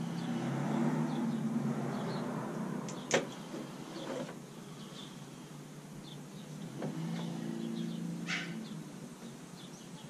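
A small motor hums steadily for the first couple of seconds, stops, then hums again for about two seconds near the end. A sharp click comes about three seconds in.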